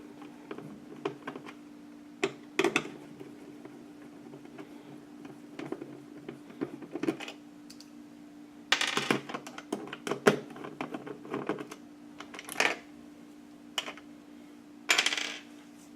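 Light clicks and knocks of small plastic parts and screws being handled as the stock CPU-cooler retention brackets are taken off a motherboard. There are a few louder rustling scrapes about 9, 12.5 and 15 seconds in, over a faint steady hum.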